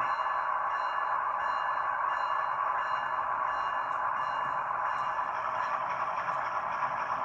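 Sound decoder of a ScaleTrains model of CSX diesel locomotive #3194 playing its steady diesel engine running sound through the model's small speaker as the locomotive starts to creep forward.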